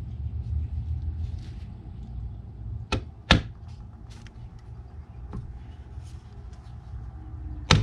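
Rubber dead-blow mallet knocking on the ears of a Ford 3G alternator's aluminium case to drive the rear end bell and stator out of the front case: two sharp knocks about three seconds in, a few light taps, and another sharp knock at the end, over a steady low hum.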